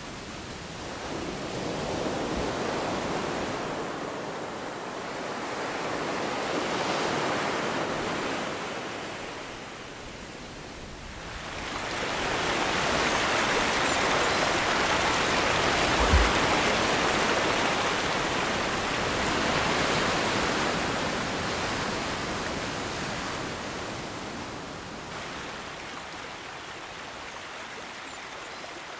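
Water rushing at a rocky shoreline, a shallow stream running over stones with surf behind it. The rush swells and eases in slow surges several seconds apart, with a brief low bump about halfway.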